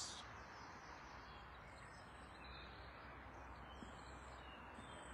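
Near silence of a garden: a low steady background hiss with a few faint, high bird calls.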